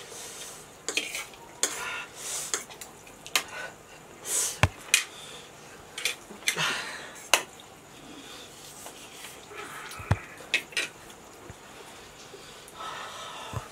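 Forks and a spoon clicking and scraping against plates as two people eat noodles, with sharp clicks at irregular intervals and softer noisy sounds between them.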